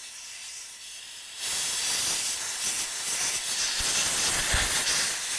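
Compressed-air blow gun hissing as it blows excess oil through a shotgun's receiver. The hiss is lighter at first, then goes to full force about a second and a half in, and stops abruptly at the end.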